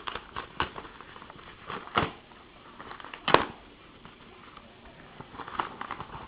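Trading cards being handled and shuffled: scattered clicks and light rustles, with a sharper click about three seconds in.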